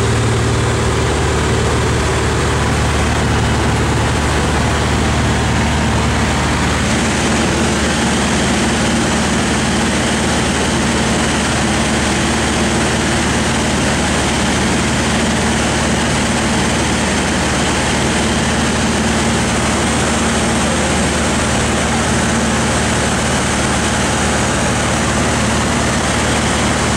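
Light propeller aircraft's engine and propeller droning steadily, heard inside the cockpit, over a steady rushing hiss. The low engine note shifts slightly about seven seconds in.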